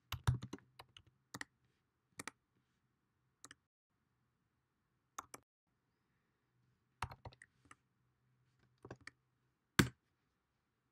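Computer keyboard keys being typed in short, scattered runs of clicks with pauses between them, and one louder keystroke near the end.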